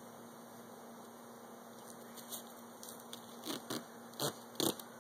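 Cardboard box handled by hand: a string of short knocks and scuffs, starting about two seconds in and coming closer together near the end, over a faint steady hum.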